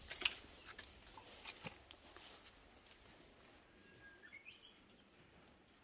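Gloved hands scraping and crackling through dry potting soil in a styrofoam box, a string of small sharp crackles in the first two seconds. Then a single short rising bird chirp about four seconds in.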